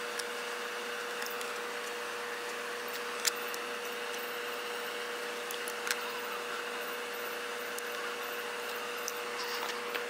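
Small sharp clicks of hands working on a plastic fan motor housing, one about three seconds in and another near six seconds, over a steady hum and hiss.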